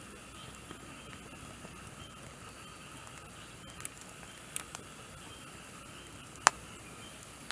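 Longan wood burning in a small ultralight fire stand, giving a few sharp crackling pops over a steady faint hiss, with one loud pop about six and a half seconds in.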